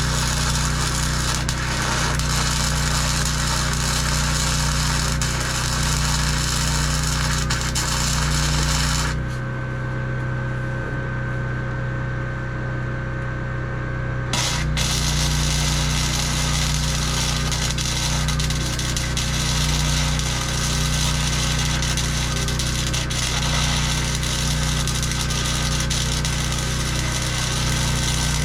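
MIG welding arc crackling steadily, with a low machine hum underneath. The crackle stops abruptly about nine seconds in and starts again sharply about five seconds later, as one bead ends and the next is struck.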